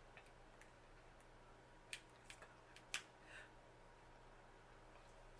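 Near silence: room tone with a few faint, short clicks about two and three seconds in.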